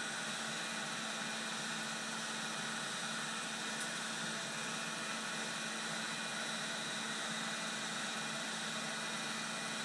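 Heat gun running on high, a steady blowing hiss with a faint low hum, as stiff plastic gauge line is drawn over its nozzle to soften and straighten it.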